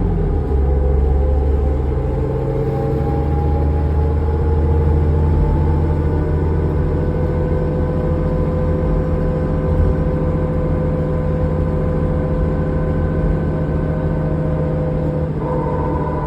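Diesel engine and drivetrain of a 2005 New Flyer D40LF transit bus heard from inside the cabin while under way: a steady drone with a whine that slowly rises in pitch, then steps up abruptly about fifteen seconds in.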